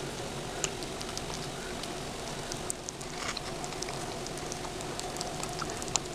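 Cat eating from a bowl: scattered small clicks of chewing and lapping over a steady hiss and faint hum.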